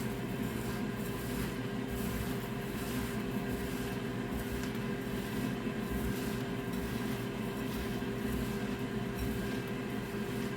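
A steady mechanical hum with a constant tone, the loudest thing throughout, under faint wet squishing of a chickpea burger mixture being mashed by hand in a bowl.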